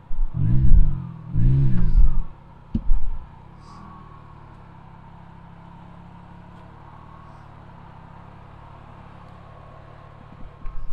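Car engine revved twice in quick succession, its pitch rising and falling each time, with a knock about three seconds in; it then settles to a steady idle.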